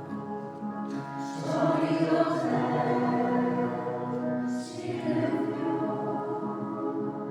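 A choir singing, holding long sustained notes, with sung 's' consonants hissing through about one and a half seconds in and again past the middle.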